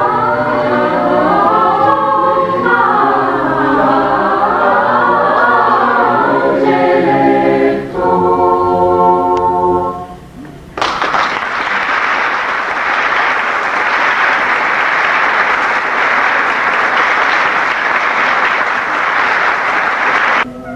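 Choir singing, ending on a held chord about eight seconds in; after a brief pause the audience applauds until near the end.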